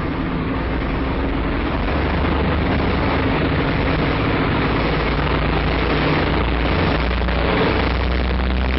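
The B-25 Mitchell's two Wright R-2600 twin-row radial engines running, a loud, steady drone heard from inside the fuselage. It gets a little louder about two seconds in.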